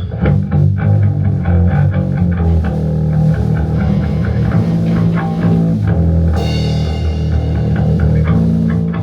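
A rock band playing live in a rehearsal studio: guitar, bass guitar and drum kit, with a steady beat and a heavy bass line. The recording is raw and unmixed.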